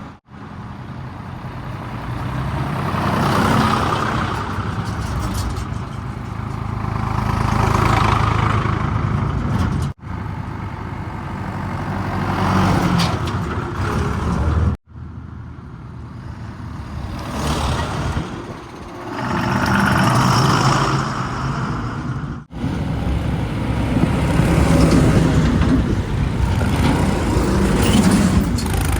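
Heavy diesel machinery engines running, the sound swelling and easing repeatedly, in several short clips joined by abrupt cuts.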